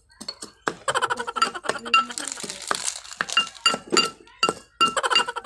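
Spoon clinking against a clear glass mixing bowl while stirring a crumbly mixture, with rapid, irregular strikes, each leaving the glass ringing briefly.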